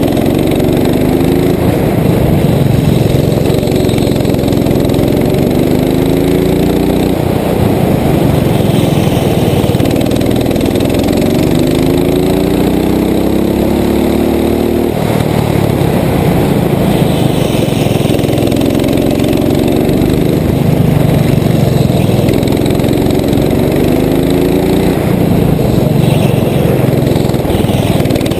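Rental go-kart's small engine running hard, heard from on board: the engine note climbs repeatedly as the kart accelerates and drops back as it slows, about five times.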